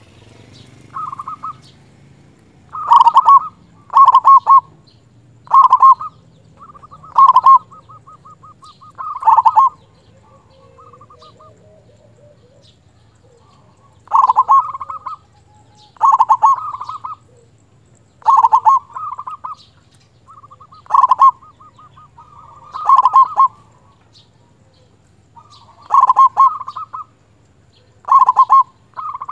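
Local zebra dove (perkutut) singing its cooing song: loud coo notes repeated every second or two, joined by quieter rapid rattling trills, phrase after phrase. The song is loud, the 'big voice' prized in a perkutut.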